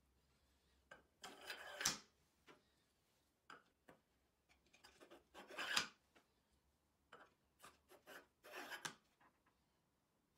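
Aluminium linear bearing blocks being handled and slid onto steel guide rods in a plywood frame: three short scraping bursts, each ending in a sharp knock, with lighter clicks between.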